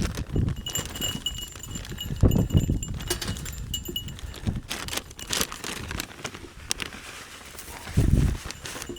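Goats moving about close by during pen chores: scattered clatter and knocks, with heavy low thuds near the start, about two seconds in and near the end.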